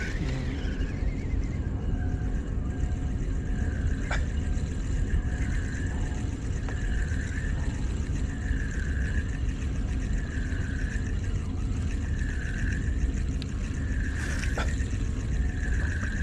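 Spinning reel being cranked in a slow, steady lure retrieve, a soft whirring swell with each turn about every two seconds, over a steady low rumble; a light click twice.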